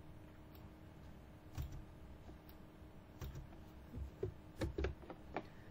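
Scattered computer keyboard keystrokes and mouse clicks, coming quicker in the second half, over a faint steady hum.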